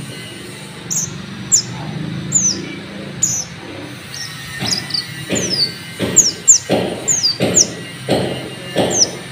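Kolibri ninja (sunbird) song: sharp high chirps sliding downward, repeated rapidly. From about halfway they are joined by rhythmic rasping bursts roughly every second, the grinder-style sound mixed into this bird-lure recording.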